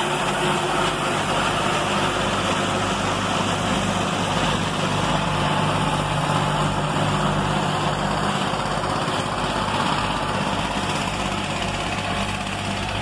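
Massey Ferguson MF235 tractor engine running steadily, driving a JF Silo Master forage bagger, with the bagger's machinery adding a broad mechanical din.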